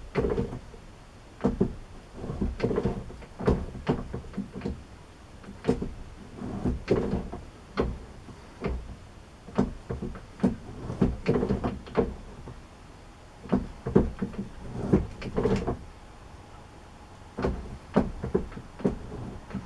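Metal being hand-broached on a lathe: repeated short scraping, clunking strokes as the cutter is drawn through the bore, taking a little at a time, with a few brief pauses between runs of strokes.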